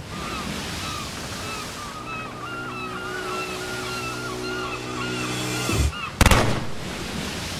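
Soundtrack ambience of ocean surf with short repeated chirps over it and a few steady low sustained tones. A sudden loud burst of noise comes about six seconds in.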